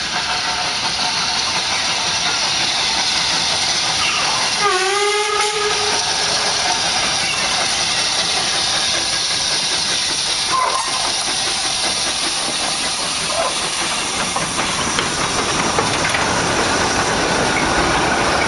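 1925 Côtes-du-Nord steam locomotive hissing steadily as it approaches and passes, with one short whistle blast about four seconds in whose pitch dips as it starts.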